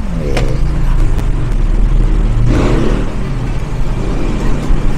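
A motor vehicle's engine running steadily, a low rumble, with a brief surge of noise about halfway through.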